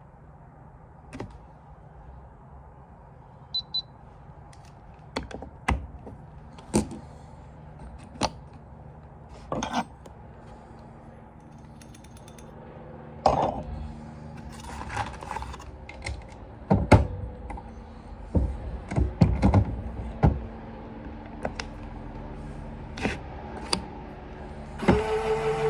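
Scattered sharp metallic clicks and clinks of brass .40 cartridge cases, bullets and reloading tools being handled and worked during handloading, busiest in the middle. Near the end a steady mechanical hum starts.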